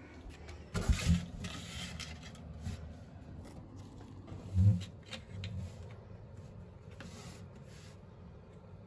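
Small objects being handled and set down on a tabletop: a couple of knocks and a rustle about a second in, a dull thump a little past the middle, and a few light taps.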